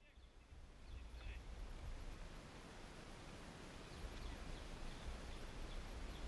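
Faint outdoor ambience: a low, uneven rumble with two faint bird chirps in the first second and a half, growing a little louder in the second half.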